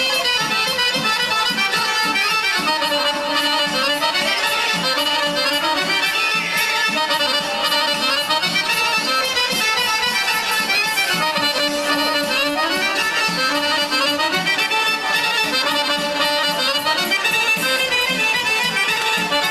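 Serbian folk dance music led by accordion, played by a small band for a round dance.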